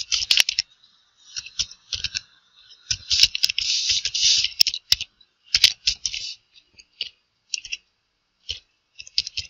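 Computer keyboard typing: irregular runs of keystrokes, with a fast burst about three to four seconds in and only scattered clicks after about six seconds.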